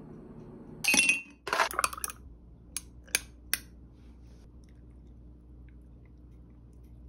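Ice cubes dropped into a glass mug: a loud clatter of glassy clinks about a second in, followed by three single light clinks.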